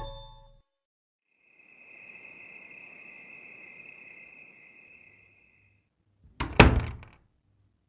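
Crickets trilling in a steady high tone for a few seconds as a night-time sound effect, then, after a short silence, a sudden loud noise lasting about half a second.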